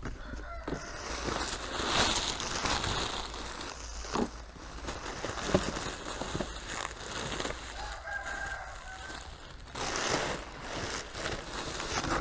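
Packaging being opened and handled, with rustling, crinkling and knocks as a boxed part is unwrapped. A rooster crows once in the background about eight seconds in.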